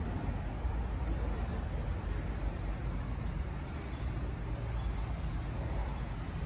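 Outdoor urban background noise: a steady low rumble with a fainter hiss.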